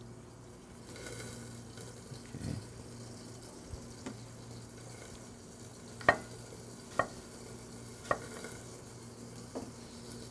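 Chicken sizzling faintly in a pan, over a low steady hum. Four sharp clicks come about a second apart in the second half.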